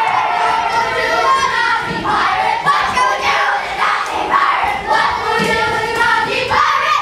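A group of children's voices raised together, singing and shouting over one another, loud and continuous.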